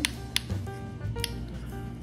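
Background music with held notes over a steady low bass, with two short light clicks about a third of a second and a second in.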